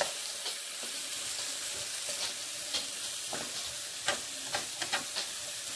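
Diced chicken sizzling as it fries in olive oil in a skillet, with a few light clicks and scrapes of a utensil stirring the pieces.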